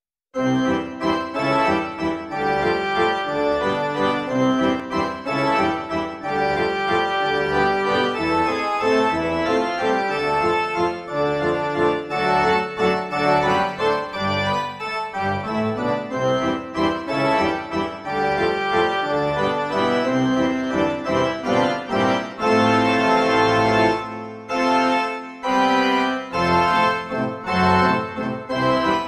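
Background music, keyboard-led, starting about half a second in.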